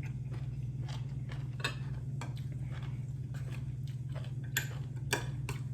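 A person eating close to the microphone: chewing with scattered small crunches and clicks, two sharper ones near the end, over a steady low hum.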